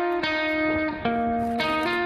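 Background music: a plucked guitar playing a melody, its notes changing every quarter to half second.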